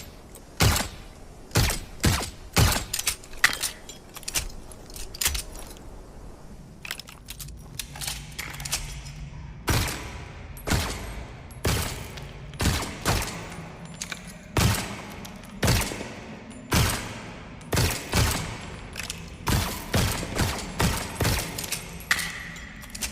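Suppressed pistol shot sound effect, a Beretta 70-series blended with the Smith & Wesson Model 39 'Hush Puppy', fired over and over at about one to two shots a second, each shot a sharp crack that fades quickly.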